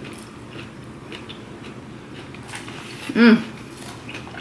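Chewing and mouth sounds of someone eating salad close to the microphone, with a brief hummed vocal sound about three seconds in.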